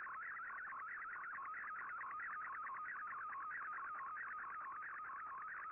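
Shortwave Radiogram's MFSK picture transmission heard through an Icom IC-R8600 receiver: a warbling digital tone that swings rapidly up and down in pitch in a repeating pattern, sounding thin and boxed-in through the radio's narrow audio passband. It is the image-data signal of a picture being sent line by line and decoded in Fldigi.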